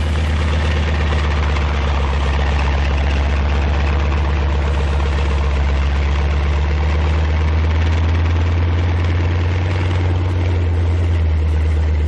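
Engine of an M4 medium tank dozer running steadily, a deep low drone with a rough rumble over it.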